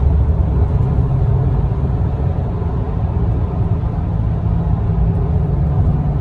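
Steady low rumble of a car cruising at freeway speed, heard from inside the cabin: road and engine noise.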